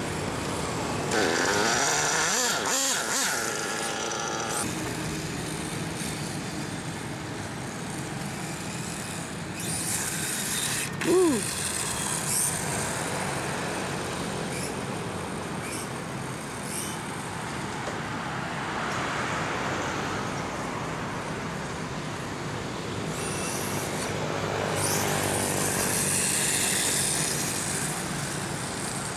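Electric motor of a radio-controlled motorcycle whining up and down in pitch as it speeds up and slows on asphalt, over steady road traffic noise. A brief sharp rise in pitch about eleven seconds in is the loudest moment.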